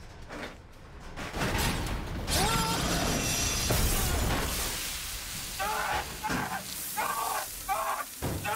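Film sound effects of a crashed helicopter wreck grinding against rock: a loud, sustained crash of crumpling metal and shattering glass. Near the end comes a quick run of short grunts from the men fighting inside, about two a second.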